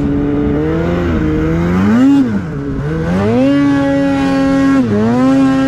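Polaris 850 Patriot two-stroke snowmobile engine breathing through a Sled Shed Cooker Thing silencer, revving under throttle while riding. The revs climb, drop back about two seconds in, rise again and hold high, then dip briefly near the end.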